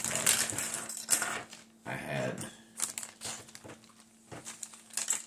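Small plastic toy parts clicking and rattling as they are handled, with many short, sharp knocks.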